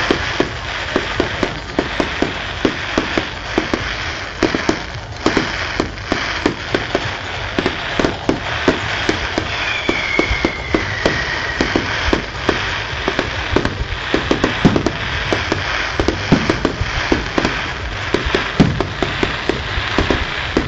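Fireworks display: a dense run of irregular bangs and crackles, several a second, over a continuous low rumble, with one falling whistle about ten seconds in.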